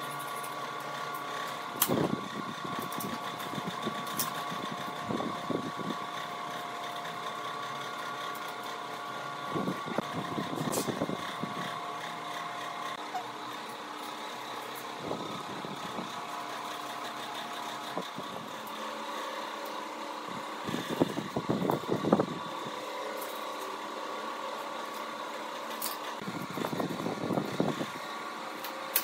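Steel scissor-linkage arms of a folding attic ladder clinking and rattling against each other and the steel worktable as they are handled, in several short spells, the loudest about two thirds of the way in, over a steady machine hum.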